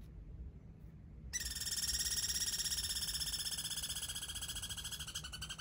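A squirrel's long, rapid trilled call, starting about a second in, sinking slightly in pitch and stopping near the end.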